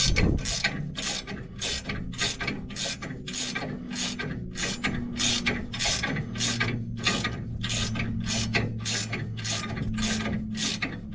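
Hand ratchet wrench clicking in steady, even strokes, about three a second, running a nut up a leaf-spring center bolt to snug it.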